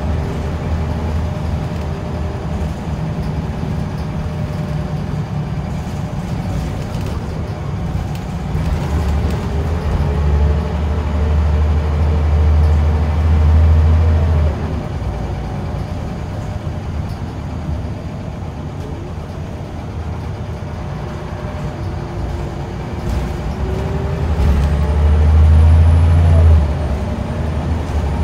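Scania L94UB bus's nine-litre five-cylinder diesel engine running under way, heard from inside the saloon. Twice, about halfway through and near the end, the engine note climbs and grows louder, then drops away suddenly, with steady road noise underneath.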